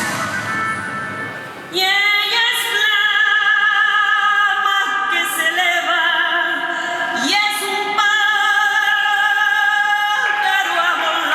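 Music with a woman singing long held notes with vibrato. The voice comes in strongly just under two seconds in, after a quieter instrumental passage.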